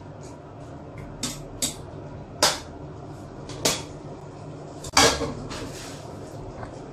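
Metal kitchen utensils (tongs and a ladle) clinking against cooking pots: five or so sharp clinks, the loudest about five seconds in, over a steady low hum.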